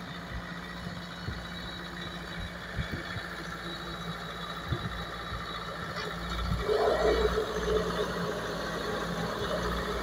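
Bobcat S570 skid steer loader's diesel engine running steadily. About six and a half seconds in the engine note rises and grows louder as the machine drives and turns.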